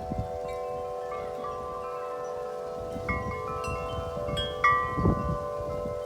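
Wind chimes ringing in strong wind: several low tones hang and overlap while new higher strikes come in a few times. Gusts of wind buffet the microphone, the loudest about five seconds in.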